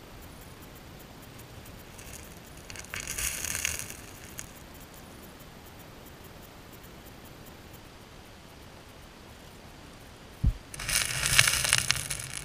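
Underwater, riverbed gravel rattles and scrapes in two bursts as a chinook salmon beats its tail against the stones of the spawning nest, stirring up silt. The first burst comes about three seconds in; a dull thump comes just before the longer second burst near the end.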